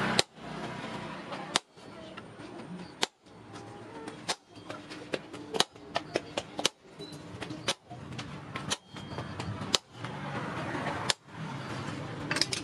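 Hammer blows on a hot steel knife blade on an anvil, one sharp ringing strike about every second, with lighter taps between.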